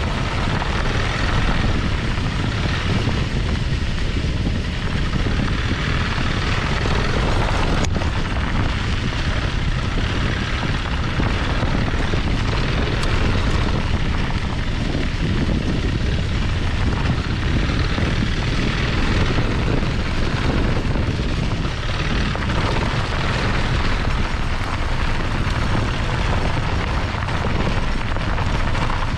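Piaggio MP3 500 three-wheel maxi scooter riding on a dirt road, heard from a camera mounted low between its two front wheels: tyres on dirt and gravel with wind on the microphone, a steady loud noise. A single sharp tick about eight seconds in.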